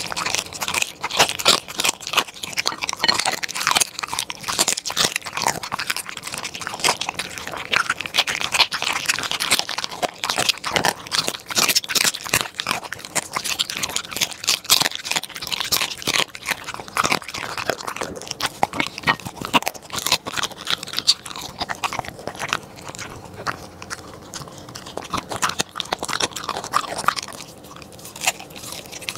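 A corgi chewing and crunching food, with quick, irregular bites and licking at the plate, taking bites of a peach slice near the end.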